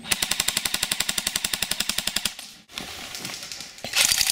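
Airsoft electric rifle firing full-auto: one rapid, evenly spaced burst of about two seconds, then a second burst starting near the end.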